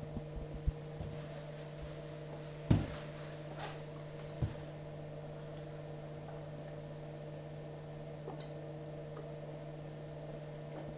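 Steady low electrical hum of room tone, with a few scattered faint clicks and knocks; the loudest is a single thump about three seconds in.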